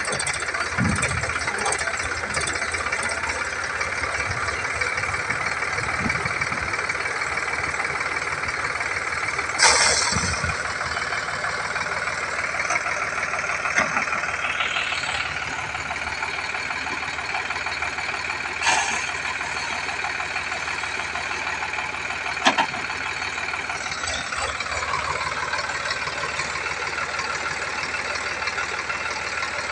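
Sonalika DI 745 tractor's diesel engine running hard under load as the tractor strains in loose sand, its rear wheels digging in. A few sharp knocks stand out above the steady engine noise.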